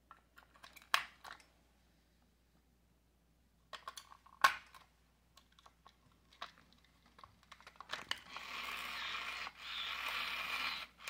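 AA batteries clicking and knocking into the plastic battery compartment of a 1999 Furby, a handful of sharp clicks with the loudest about halfway through. About eight seconds in, the Furby's motor and gearbox start a steady whir as the toy powers up.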